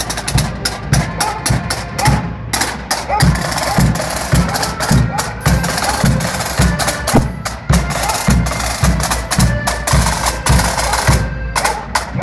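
Marching band drums: a steady bass-drum beat about twice a second with quick, sharp snare strikes between the beats, along with the band's music.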